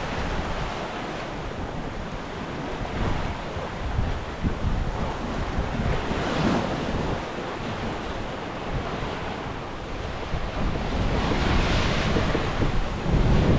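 Waves rushing alongside a sailing yacht at sea, with wind buffeting the microphone in a low rumble. The rush of water swells up about halfway through and again near the end.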